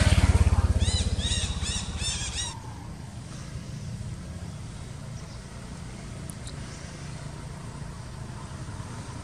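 A motorbike engine passing close by, loudest at the start and dying away within about two and a half seconds. A quick run of about five high chirps comes about a second in. After that there is only a steady low outdoor background.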